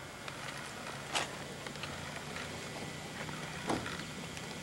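Steady outdoor background noise with two brief knocks, one about a second in and another about two and a half seconds later.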